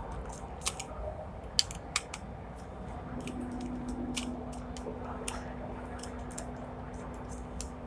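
A screwdriver clicking and scraping on the terminal screws and plastic housing of a Siemens motor protection circuit breaker (MPCB), with a few sharp clicks in the first two seconds. A low steady hum comes in about three seconds in.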